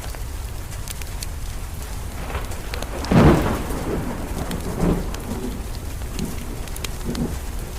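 Steady rain with a peal of thunder about three seconds in that rolls on in two weaker rumbles. Scattered small crackles from a wood fire can be heard through it.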